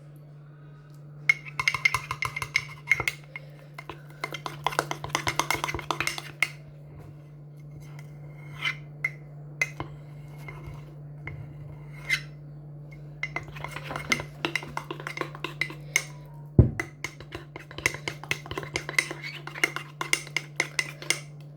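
Spoon stirring cake batter in a mug, with quick runs of clinks and scrapes against the mug's sides in several bursts and one louder knock a little past halfway. A steady low hum sits underneath.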